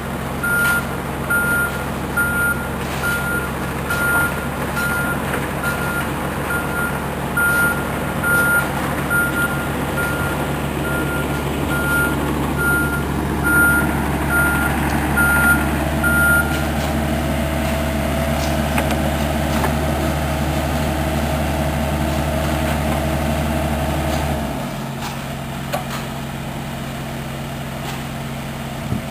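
A backup alarm beeps steadily, about once every three-quarters of a second, over the running diesel engine of a Volvo EC35C mini excavator. The beeping stops about 16 seconds in, and the excavator's engine shuts off about 24 seconds in, leaving a quieter machinery hum.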